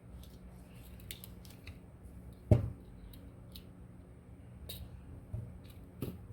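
Jewelry tools and wire being handled while wire-wrapping an earring: scattered small clicks and snips, with one sharp click about two and a half seconds in.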